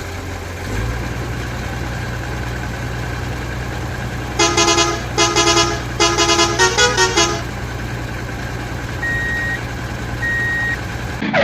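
Truck engine running steadily while its horn sounds three toots about four seconds in, then a quick run of shorter notes that change pitch; two short high beeps follow near the end.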